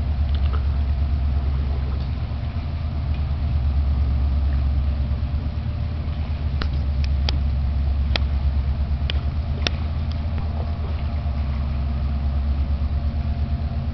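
A low, steady engine drone with a deep hum. Several short, sharp clicks fall in the middle.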